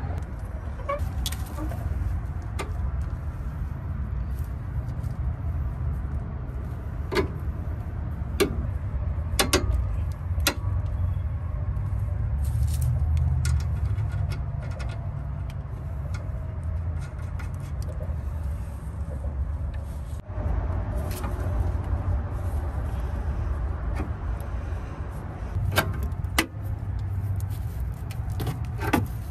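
Small metal clicks and clinks of a sway bar end link's washer, nut and threaded stud being handled and fitted by hand, scattered through a steady low background rumble. The last clicks come from a ratchet and wrench being set on the link's nut.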